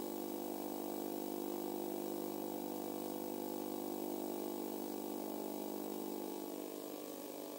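Steady hum made of several even, held tones, with no speech over it; it drops slightly near the end.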